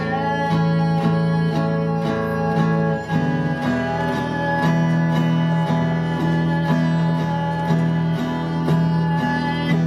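Acoustic guitar strummed in a steady rhythm, an instrumental passage between the sung lines of a folk-style song.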